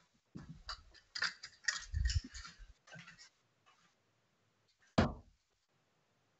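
Steel-tip darts clicking and knocking as they are pulled from a bristle dartboard. About five seconds in, a single dart hits a board with a sharp thud.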